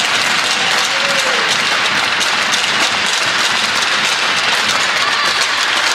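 Crowd applauding: steady clapping from players, families and spectators.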